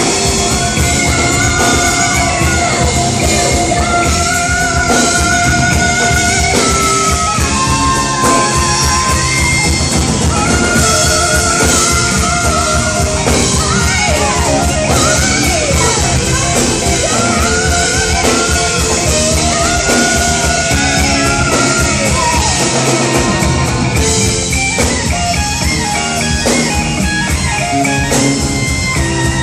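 A rock band playing live in a large hall, with electric guitar, drums and singing at a loud, steady level.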